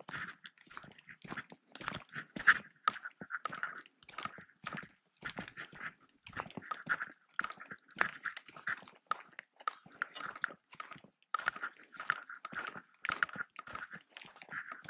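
Footsteps crunching irregularly on dry grass and dirt, with close rustling scrapes.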